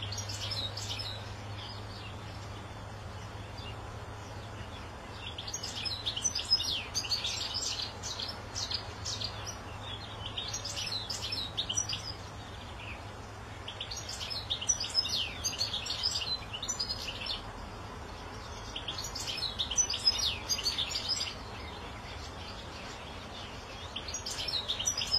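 European goldfinch singing: phrases of rapid, high twittering, each two to three seconds long, repeated about six times with pauses of a couple of seconds between them.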